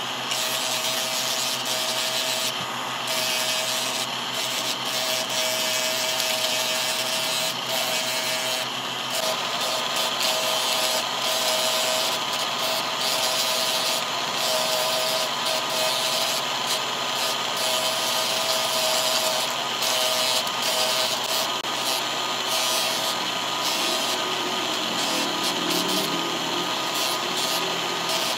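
Electric motor spinning an abrasive disc, with a steady hum under the scratchy rasp of a carved wooden figure being sanded against the disc. The rasp comes and goes as the wood is pressed on and moved about.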